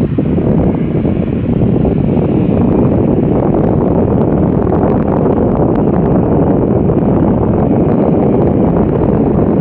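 Heavy wind buffeting on the microphone, a steady loud rumble, over the noise of jet engines from a Boeing 737 taxiing and an Airbus A350 on its takeoff roll.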